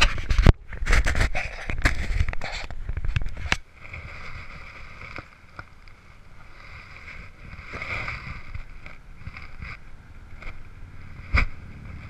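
Handling noise on a GoPro Hero3 in its sealed waterproof housing, worn on a chest harness: loud knocks and rubbing against the housing for the first few seconds, then a quieter, muffled steady background with one sharp knock near the end.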